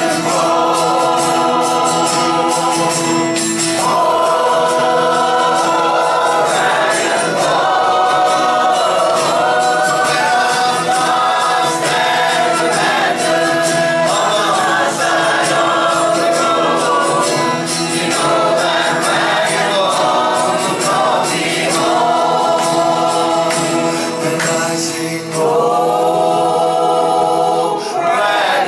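A folk band playing live, with several voices singing together in harmony over instrumental accompaniment.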